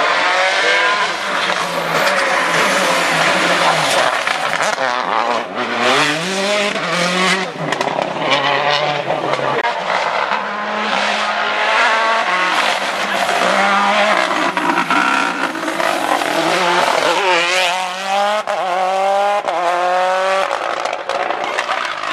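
Rally car engine worked hard, its pitch climbing and dropping again and again with gear changes and throttle lifts. Near the end it gives a run of quick rising revs.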